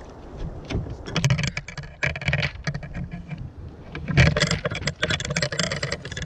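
Irregular bursts of scraping, rattling and knocking as a freshly caught sierra (snoek) is handled down into a plastic bucket. The loudest cluster comes about four seconds in.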